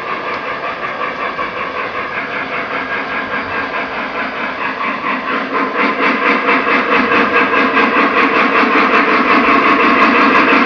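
Double-headed Lionel Legacy Pennsylvania K4 O-gauge steam locomotives' onboard sound systems playing fast, even steam chuffing, growing louder from about halfway through as the train approaches.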